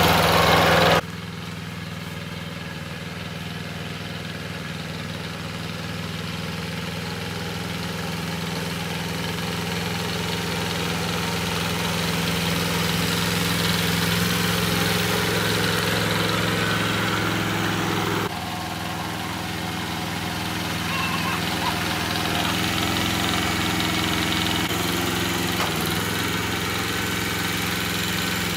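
A vehicle engine running steadily at idle, its sound changing abruptly about a second in and again about two-thirds of the way through.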